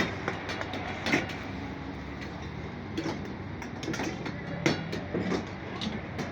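Busy kitchen noise: a steady low rumble with scattered metallic clicks and clanks of utensils, one sharper clank about a second in and a louder one near five seconds.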